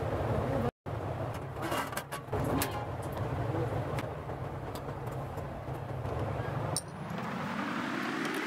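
Light clicks and knocks of a toroidal transformer and screwdriver being handled on a sheet-metal chassis, over a steady low rumble. The sound cuts out briefly about a second in, and near the end a rising whine sets in.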